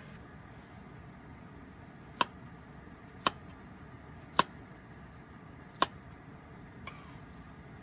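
Sharp, ringing ticks, five in all at uneven spacing of about a second, over a low steady hiss.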